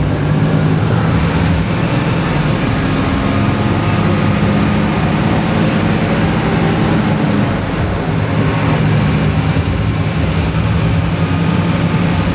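A bus's engine running under load with road and cabin noise, heard from inside the cab while driving. About eight seconds in the engine note briefly fades and then comes back.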